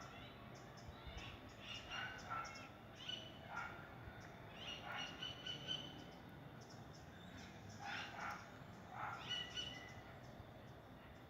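Birds calling: a dozen or so short, high calls come in irregular clusters over a faint steady background hiss.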